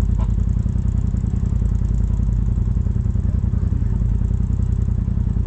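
Polaris RZR side-by-side's engine running steadily while driving on the trail.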